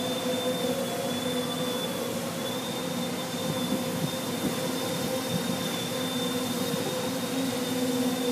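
Quadcopter's electric motors and propellers running steadily: a hum with a thin, high whine above it.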